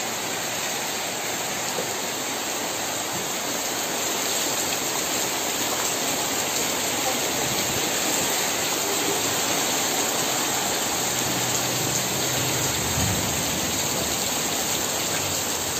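Heavy rain falling steadily onto wet ground and puddles.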